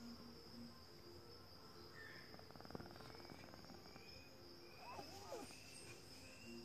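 Faint, high-pitched whistling snore of a sleeping American Shorthair kitten, barely above near silence.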